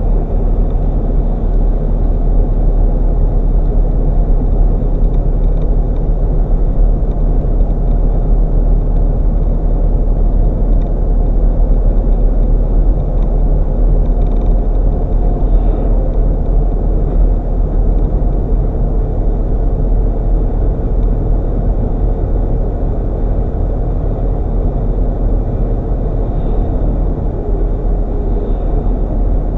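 GMC Yukon driving along the road: a steady, loud low rumble of engine and road noise with no change throughout.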